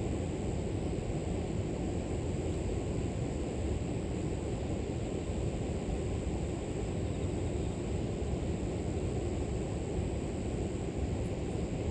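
River water flowing in a steady, even rush, with a thin continuous high drone of grass insects over it.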